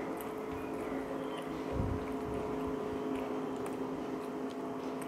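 A steady, even machine hum with a few faint clicks and a dull thump about two seconds in.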